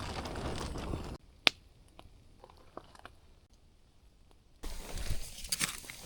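Campfire crackling, with one sharp pop about a second and a half in and scattered fainter pops; a steady hiss drops away abruptly about a second in and returns near the end.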